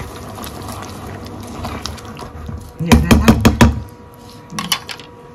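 A wooden or plastic spatula knocks several times in quick succession against a paella pan, about three seconds in. Two lighter taps follow a little over a second later, over a low steady hum.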